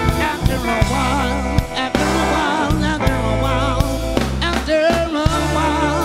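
Live soul band playing: drum kit beats and bass under electric guitars and keyboard, with a lead melody line carried on a wide vibrato.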